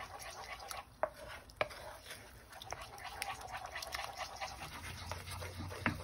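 Eggs sizzling and crackling in a nonstick frying pan while a wooden spoon stirs and scrapes through them, with a few sharper knocks of the spoon against the pan.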